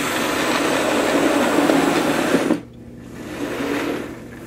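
OO gauge model train running past on the track, wheels rattling over the rails with a small motor's whirr. Loud until about two and a half seconds in, where it drops off suddenly, then builds again near the end.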